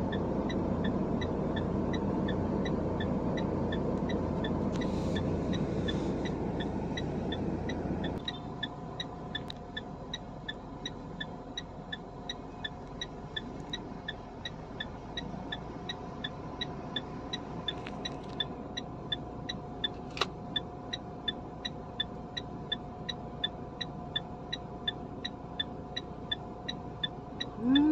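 Vehicle engine and road noise while driving, dropping sharply about eight seconds in to a quieter steady hum as the vehicle stops and idles. A regular ticking, about two to three times a second, carries on throughout.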